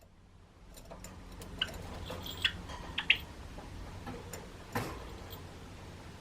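Java sparrow pecking and tapping in an agitated fit, a string of irregular small ticks and clicks with a few sharper taps around the middle. It is the bird's angry reaction to its owner's sneeze.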